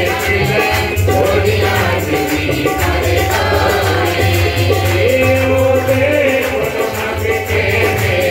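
Punjabi worship song performed live: a man singing a wavering melody to harmonium accompaniment, with a tabla pair keeping a steady rhythm of deep and sharp strokes.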